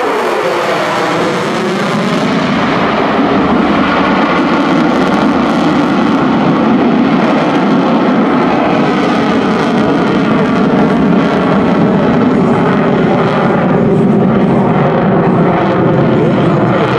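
USAF F-35A's single Pratt & Whitney F135 afterburning turbofan at full afterburner: loud, dense jet noise. A falling whine in the first second or two marks the jet passing overhead, then the noise stays steady as it climbs away.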